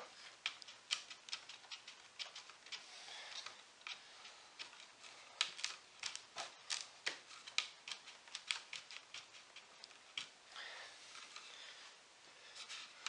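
Faint, irregular light clicks and ticks from a loose wooden joint in an oak chair as its turned spindle is rocked back and forth to work penetrating glue down into the joint.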